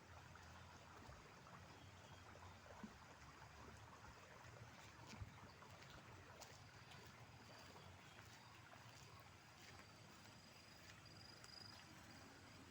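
Near silence, with a few faint scattered clicks and a faint thin high tone that comes and goes in the second half.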